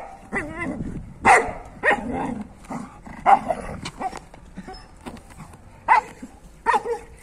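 A dog barking in short, sharp single barks, one every second or so, about six in all.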